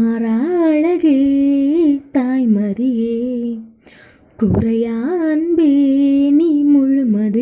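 A woman singing solo and unaccompanied: long held notes with ornamented turns, in two phrases with a breath about halfway through.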